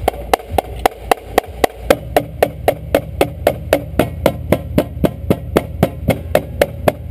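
Marching drumline warming up: an even pulse of sharp stick strokes, about three and a half a second, with the drums sounding fuller from about two seconds in.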